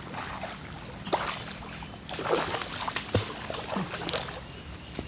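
A hooked snakehead thrashing at the surface near the bank while being reeled in, giving several irregular splashes.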